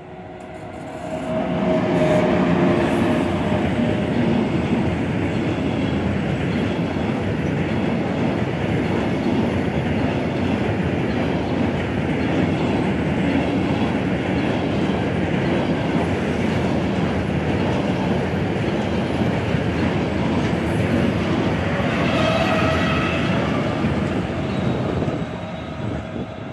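Siemens Taurus electric locomotive and a long freight train of flat wagons passing close by: a steady rolling rumble of wheels on rail that builds over the first two seconds as the locomotive draws level. Brief ringing wheel squeals come as it arrives and again late on, and the rumble falls away near the end as the last wagons pass.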